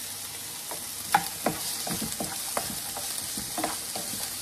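Chopped vegetables sizzling as they shallow-fry in oil in a frying pan, with a steady hiss, while a wooden spatula scrapes and knocks against the pan as they are stirred. The sharpest knock comes about a second in.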